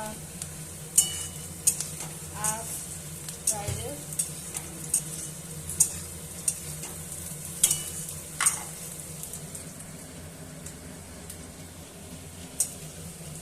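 Food sizzling in hot oil in a pan while a spatula stirs it, clinking and scraping against the pan at irregular moments. A steady low hum runs underneath.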